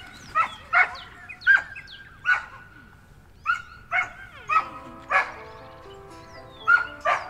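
A dog barking repeatedly in short sharp barks, about one or two a second at uneven spacing. Background music comes in about two-thirds of the way through.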